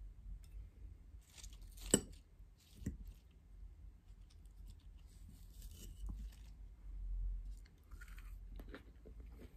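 Quiet eating at the table: soft chewing and crunching, with a sharp clink of a metal fork against a ceramic plate about two seconds in and a softer clink about a second later.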